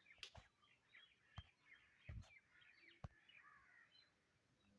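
Near silence with faint birds chirping in the background and a few soft clicks.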